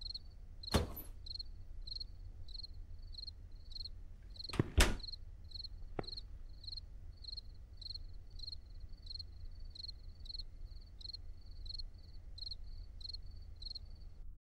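A cricket chirping steadily, about two chirps a second, over a low hum. There are a few sharp knocks: one about a second in, a double one near five seconds, and a faint click a second later.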